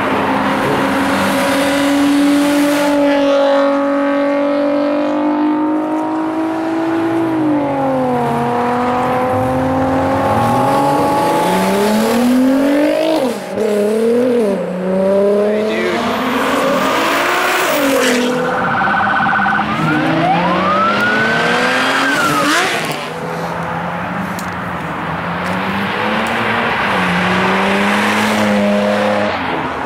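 Several high-performance sports cars accelerating hard past one after another, engines revving up through the gears with sharp drops at each shift and falling in pitch as each car goes by.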